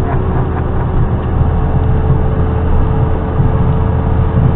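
Steady low rumble of a running vehicle, with a constant faint hum held at one pitch throughout; no air-horn blast sounds.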